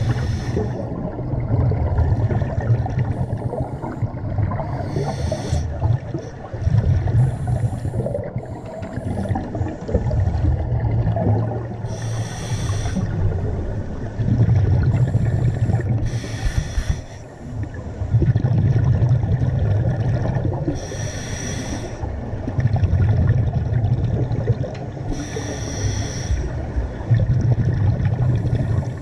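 Scuba diver breathing through a regulator underwater, heard through the camera housing: a hissing burst of breath and bubbles about every four to five seconds over a steady low bubbling rumble.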